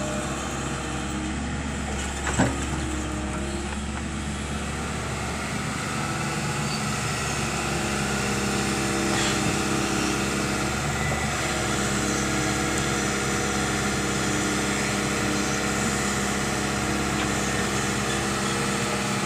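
Excavator's diesel engine running steadily, picking up slightly a few seconds in as the machine works. A single short knock about two seconds in.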